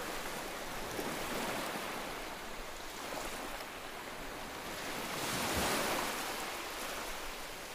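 Sea surf washing in, a steady rush that swells to a peak about five and a half seconds in.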